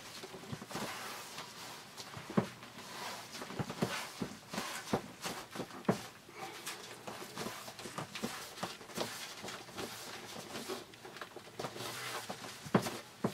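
Irregular light taps, knocks and rubbing as hands press an adhesive-backed shower-curtain track against a wall to seat the sticky tape.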